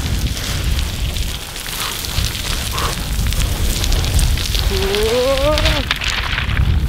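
Feet running and skidding down a loose gravel scree slope, stones crunching and scattering, over a heavy low rumble of wind on the microphone. About five seconds in, a person lets out a rising whoop that lasts about a second.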